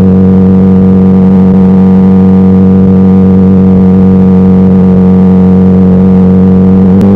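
Honda CBR600RR's inline-four engine running loud at a steady engine speed while riding, holding one pitch; it dips briefly just before the end.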